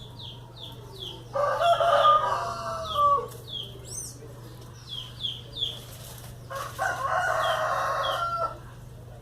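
A rooster crowing twice, each crow about two seconds long, over a run of short high chirps.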